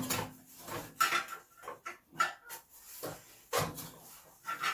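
Metal tools and engine parts clinking and knocking while the pull-start housing is worked off a small snowblower engine, a series of separate sharp clicks about a second apart.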